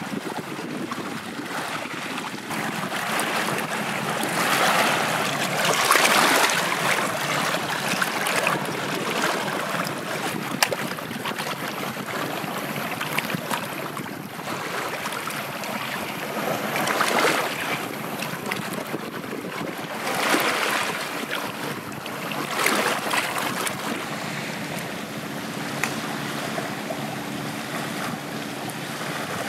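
Shallow seawater washing and splashing at the shoreline, rising in several rushing swells, as a gutted stingray is rinsed by hand in the water.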